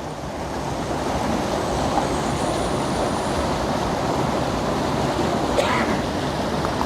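Steady rushing of a waterfall and its stream, with one light click late on.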